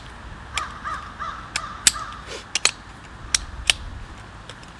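Shock-corded aluminium poles of a packable camp chair frame clicking sharply as the sections snap together, about seven clacks at uneven intervals. Faint short bird calls in the background during the first couple of seconds.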